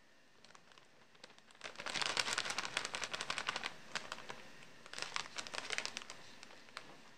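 Plastic instant-soup packet crinkling as it is handled, in two spells of dense, irregular crackle, the first longer and louder.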